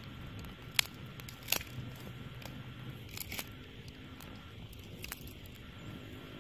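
Wood fire crackling, with a few sharp pops; the two loudest come about one and one and a half seconds in.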